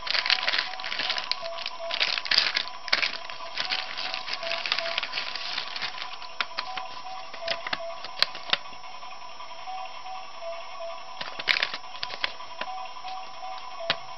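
Clear plastic toy bag and paper crinkling and rustling as they are handled and opened, dense for the first six seconds and again briefly near the end. Throughout there is background music with a steady repeating electronic tone.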